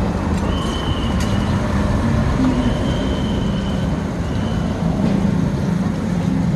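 Steady traffic rumble of engines on a busy street, with a thin high tone that comes and goes a few times.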